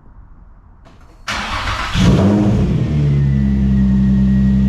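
Nissan 350Z's V6 engine started: the starter cranks for under a second, the engine catches about two seconds in with a short flare of revs, then settles into a steady idle.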